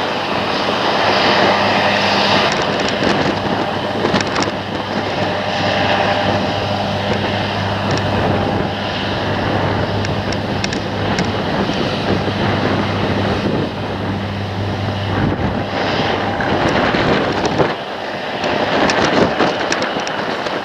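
John Deere combine harvester cutting wheat with a tractor and grain trailer running alongside: a steady, loud drone of engines and threshing machinery with a constant low hum that drops away near the end.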